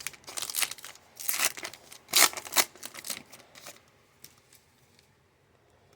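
Crinkling and tearing rustles of a trading card pack wrapper as the cards are handled. The rustles come in quick irregular bursts and stop about four seconds in.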